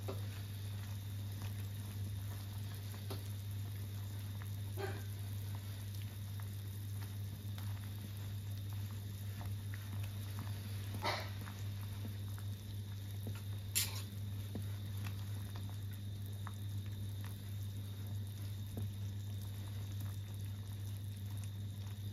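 A clay pot of duck soup simmering with a faint, steady bubbling patter over a low hum, and a few sharp clicks of metal chopsticks against the pot.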